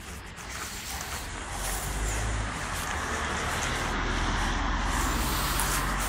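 A steady rumbling rush that swells louder over several seconds, like a motor vehicle passing on a nearby road, heard over dogs scrabbling in loose dirt.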